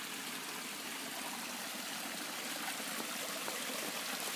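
Small garden-pond waterfall spilling over stacked rocks into the pond, a steady trickling splash of water that grows a little louder near the end.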